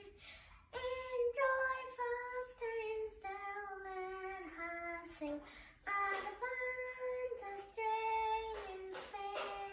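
A young girl singing solo and unaccompanied, holding notes in sung phrases with short breaks between them.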